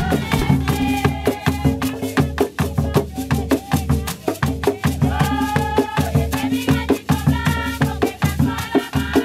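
Live Afro-Colombian drumming on hand drums with rattling percussion in a fast, dense rhythm, and a group of women singing in phrases over it.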